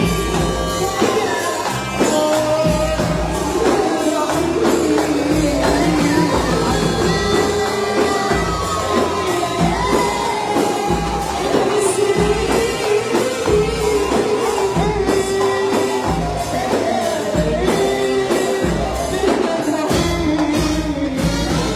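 Arabic popular song performed live: a woman's voice singing a winding, ornamented melody over a band with a steady bass beat and tambourine.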